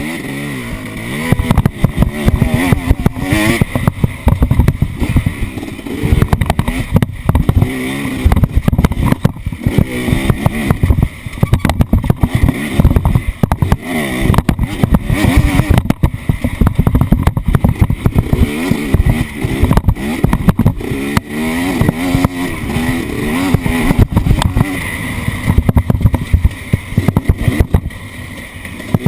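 Off-road vehicle engine revving up and down repeatedly over rough ground, with frequent knocks and heavy low rumble throughout.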